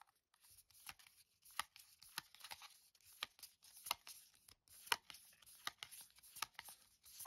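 Trading cards being flipped through by hand from a freshly opened booster pack: faint, irregular clicks and soft swishes as each card slides off the stack, about one to three a second.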